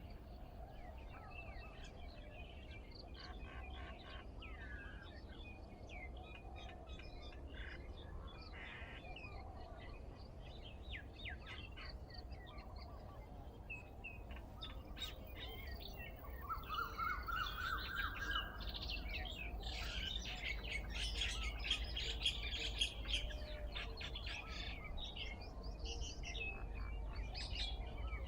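Several birds chirping and calling over one another, with short, quick notes. The calls grow busier and louder in the second half, with a brief run of rising notes just past the middle. A steady low rumble sits underneath.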